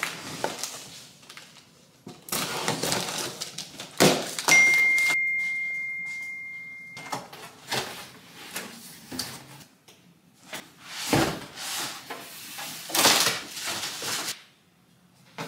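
Cardboard box being opened and handled during an air-fryer unboxing: flaps scraping, rustling and bumping, with a sharp knock about four seconds in followed by a steady high tone lasting about two and a half seconds.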